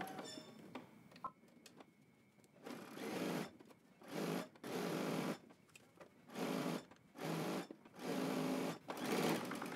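Electric sewing machine stitching a seam through the layers of a swim-trunk waistband. It runs in short spurts of about a second, stopping and starting about seven times, after a quiet start with a single click.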